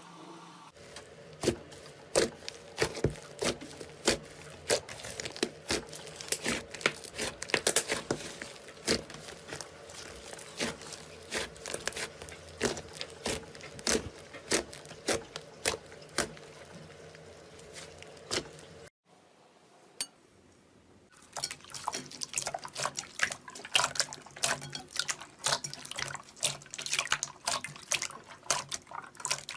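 Slime being squeezed and worked by hand, a dense run of wet clicks and pops. It breaks off about nineteen seconds in and resumes a couple of seconds later.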